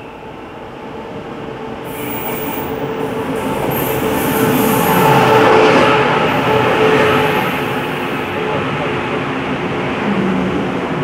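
Taiwan Railways Tze-Chiang express train running into an underground station platform: a rumble of wheels and running gear that builds to its loudest about five to six seconds in, then eases a little as the carriages pass. High squealing joins in from about two seconds in.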